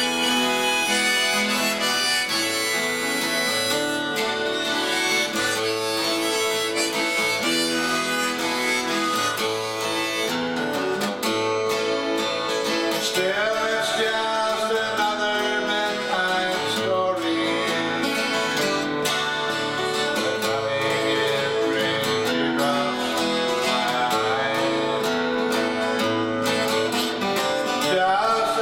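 Harmonica played from a neck rack over a strummed twelve-string acoustic guitar, an instrumental break in a slow country song.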